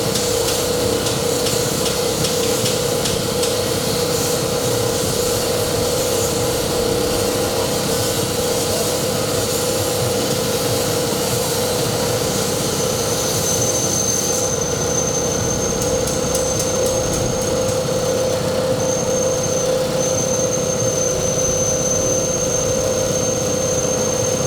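Electric coconut milk press machine running steadily on a test run, with a constant hum. About halfway through, a thin high whine joins in and holds, with brief breaks.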